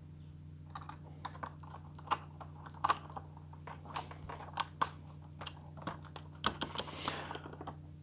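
Scattered light clicks and taps of a small screwdriver and screw probing the mounting holes in the plastic nose of a foam model plane while the motor is lined up inside. There is a brief rustle of handling a little past halfway, over a faint steady low hum.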